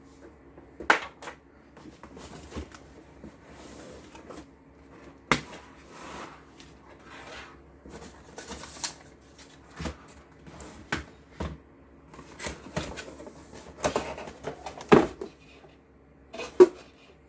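A plastic gaming keyboard and its packaging being handled during unboxing: irregular knocks and clicks as the keyboard is moved, set down and turned over, with short spells of rustling.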